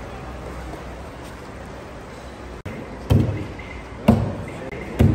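A plastic basin is tipped out over a giant cauldron of plov: three loud, sudden sounds about a second apart, each dying away quickly, over a steady background hiss.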